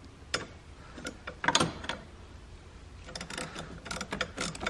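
Ratchet wrench clicking as the clutch master cylinder is tightened against the firewall: a few separate clicks and metal knocks at first, then a quick run of clicks over the last second and a half.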